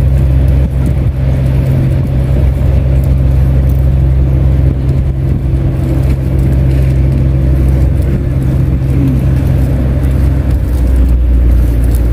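Steady low hum of a running engine, its pitch settling lower shortly before the end.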